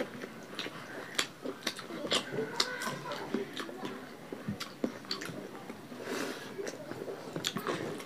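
People chewing and smacking as they eat rice and rohu fish curry with their hands: a string of short, irregular clicks.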